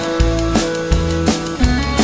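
Country-rock band playing an instrumental passage without vocals: guitars and bass over a steady drum-kit beat.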